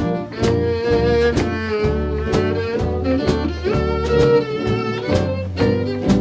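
Small swing jazz band playing live: a violin carries the melody over rhythm guitars strummed on the beat and double bass notes, about two beats a second.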